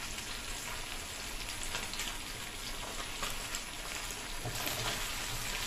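Small anchovies (netholi) frying in hot oil: a steady sizzling hiss with small scattered crackles.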